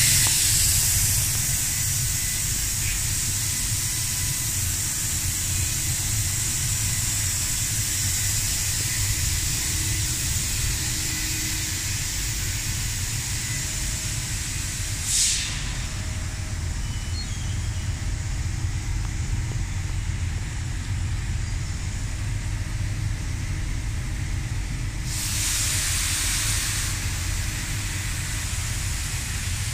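Amada ENSIS 3015AJ fiber laser cutting machine running: a steady low rumble with a high hiss of assist gas at the cutting head. The hiss is strongest at the start, comes as a short burst about halfway, and returns for a couple of seconds near the end.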